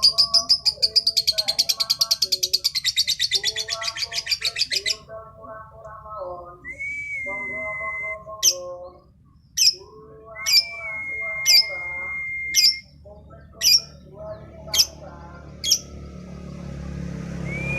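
Female lovebird singing: a fast trill of high chirps for about five seconds, then sharp single chirps about once a second between held whistled notes, over lower twittering.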